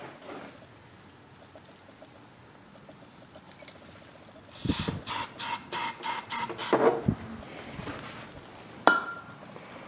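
Aerosol can of starting fluid sprayed in about eight short hissing squirts over two seconds, priming a Briggs & Stratton 13 hp single-cylinder engine. A single sharp click follows near the end.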